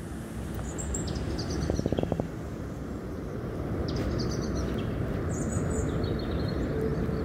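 Steady rush of surf breaking on the beach and wind on the microphone, with a few short high chirps scattered through and a quick rattle of clicks about two seconds in.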